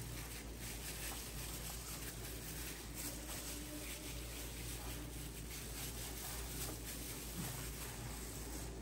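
Faint, soft wet squishing of plastic-gloved hands rubbing thick spice paste over and into a whole raw fish on a plastic tray, over a steady low hum.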